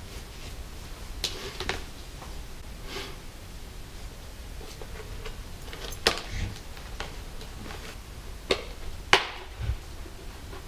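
Handling noise from a Shoei Neotec modular helmet being reassembled by hand: a few scattered clicks and light knocks of its shell and strap parts, the sharpest about nine seconds in.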